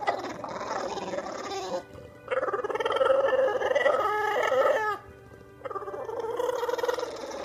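English bulldog howling: three long, wavering howls of a couple of seconds each, with short breaks between them.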